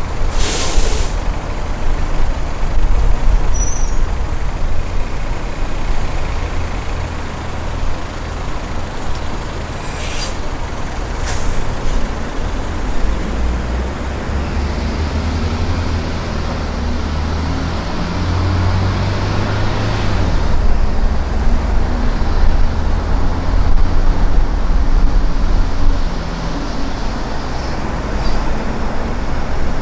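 Road noise of a car driving in city expressway traffic: a steady low rumble of engine and tyres. Brief sharp noises break through just after the start and twice around ten to eleven seconds in.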